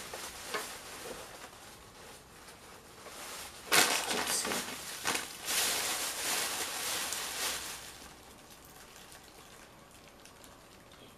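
Crinkling and rustling of a potato-chip bag and a plastic bag being handled and set down on a wooden cutting board. A sharp knock comes about four seconds in, and the rustling goes on for about four seconds before dying away.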